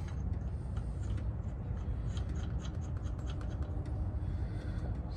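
Lug nuts being spun onto the wheel studs by hand: a run of light metallic ticks and scratches over a steady low rumble.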